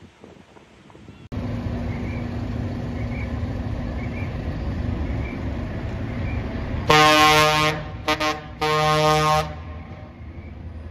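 Decorated Japanese truck (dekotora) running as it drives off a ferry, then sounding its air horn: a long blast about seven seconds in, two short toots, and a second blast about a second long.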